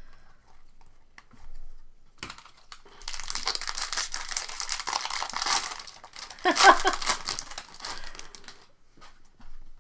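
Foil wrapper of a baseball trading-card pack being opened and crinkled by hand: a few light clicks, then a dense crackling rustle starting about three seconds in and stopping shortly before the end.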